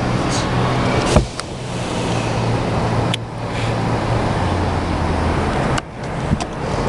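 Coil-cleaning spray gun at work: a motor hum under a steady spray hiss, with the spray cutting off briefly about a second in, about three seconds in and again near the end.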